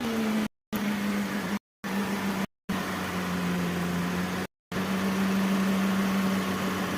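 Mercedes M271 four-cylinder engine running steadily at idle with its faulty cylinder 1 spark plug replaced, a smooth even hum. It is cut by a few brief gaps of silence.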